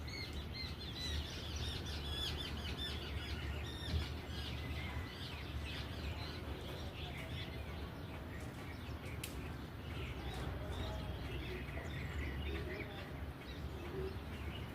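Many small birds chirping and calling at once, quick repeated chirps overlapping throughout, over a steady low rumble.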